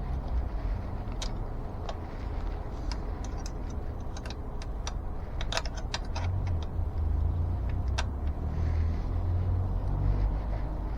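Scattered light metallic clicks and ticks of an e-bike's brake caliper and pad being worked by hand, over a steady low rumble that grows louder about halfway through.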